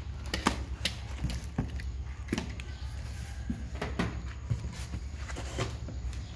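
Cardboard shipping box being opened by hand: packing tape cut and the cardboard flaps pulled apart, giving a string of irregular sharp rustles and knocks, with a steady low hum underneath.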